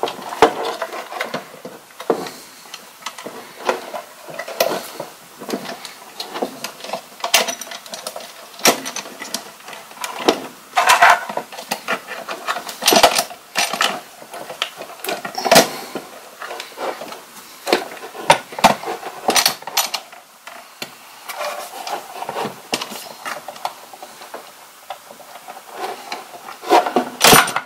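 Stiff electrical wires being worked and forced into the terminal block of a Progressive EMS electrical protection unit, with the box handled: irregular clicks, knocks and scraping.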